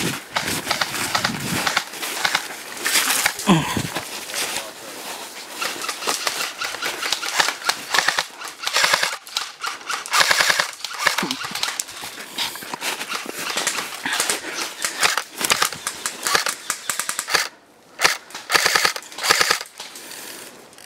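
Airsoft AK-pattern rifle firing in repeated rapid full-auto bursts, a fast rattle of shots broken by short gaps.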